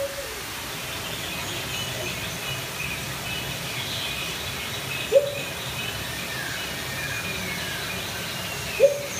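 Many small birds chirping and twittering over a steady low hum, with two short, louder tones about five seconds in and again near the end.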